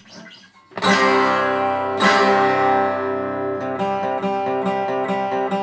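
Acoustic guitar playing: two loud strummed chords about a second apart are left ringing, then a steady rhythm of strummed strokes, about three a second, starts a little past halfway.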